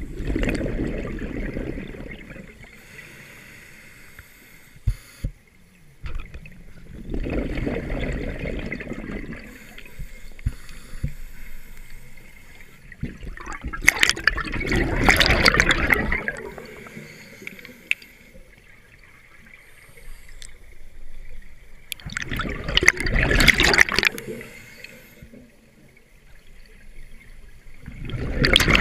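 Scuba regulator exhaust: bursts of bubbling, gurgling exhaled air about every seven seconds, five breaths in all, the one about halfway through the longest and loudest, with quieter spells between as the diver inhales.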